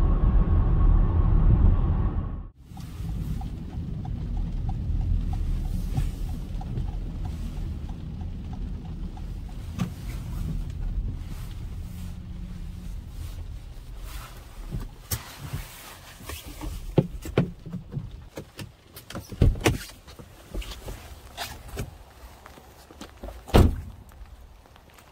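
Steady tyre and road noise inside the cabin of a BMW X3 driving on a wet road, cutting to the lower, fading hum of slow driving. Then a string of knocks and footsteps, with several heavy car-door thuds, the loudest near the end.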